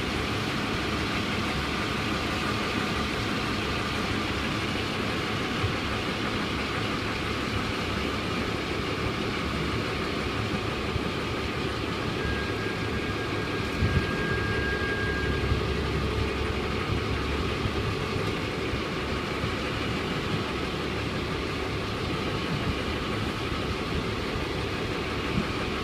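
Steady engine rumble heard from afar, under a constant rush of wind on the microphone.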